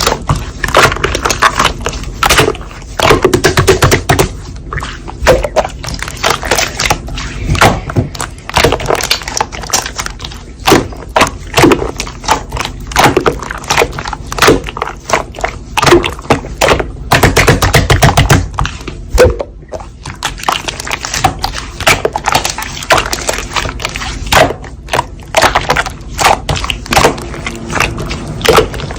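Slime being squeezed, stretched and pressed by hand, giving a dense run of sticky pops, clicks and squelches.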